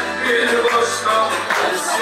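Music playing, a song with many instruments and pitched parts that shift continuously.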